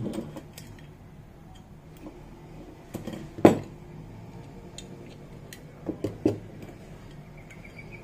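Handling noises as small metal disc horns are picked up and set down on a wooden workbench: a few sharp knocks, the loudest about three and a half seconds in and two more around six seconds in. No horn sounds.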